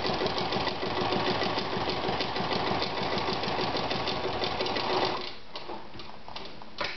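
A 1963 Veritas 8016/22 sewing machine stitching through a double layer of thick boot leather, a fast, even stitch-by-stitch clatter. It stops about five seconds in, followed by a few light clicks and a sharper click near the end.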